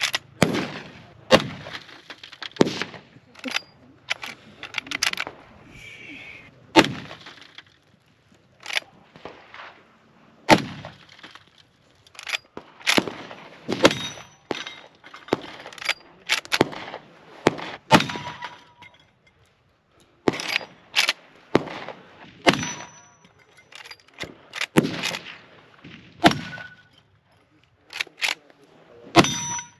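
Big Horn Armory Model 89 lever-action rifle in .500 S&W firing shot after shot, a second or a few seconds apart, with the lever worked between shots. Bricks break and steel plates ring with a short ding after some hits, most clearly in the second half.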